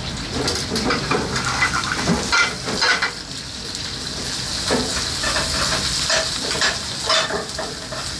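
Vegetables sizzling in frying pans on a gas range, with metal scrapes and clinks as a cook stirs and tosses them in a pan. The sizzle is a steady hiss, and the clatter comes in two spells, one in the first few seconds and one in the second half.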